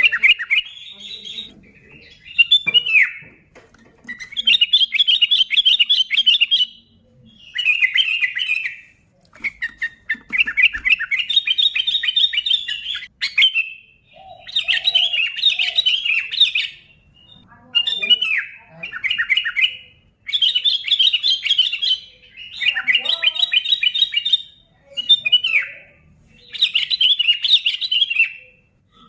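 Sooty-headed bulbul (kutilang) singing loud, high, rapid chattering phrases of one to two seconds each, repeated over and over with short pauses between them.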